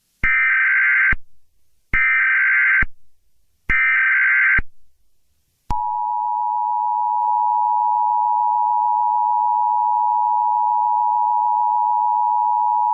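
Emergency Alert System header and attention signal. Three short SAME data bursts come about a second apart. About six seconds in, the steady two-tone EAS attention tone (853 and 960 Hz) starts and holds.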